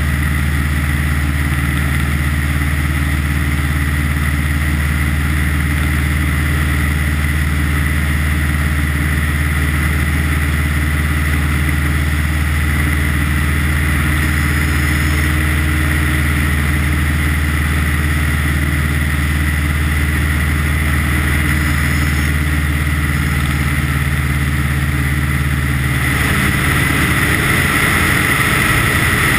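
Light aircraft's piston engine and propeller droning steadily in low flight, heard from a camera mounted outside the plane. Near the end the steady note breaks up and the rushing noise gets a little louder.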